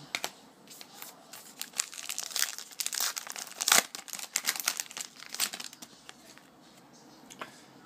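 Trading-card pack wrapper being torn open and crinkled by hand as the cards are pulled out: a dense crackle for a few seconds that dies away about six seconds in.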